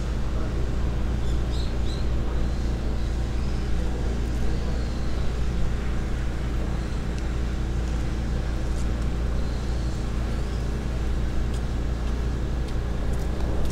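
A steady low hum of an idling engine, even throughout, with no revving.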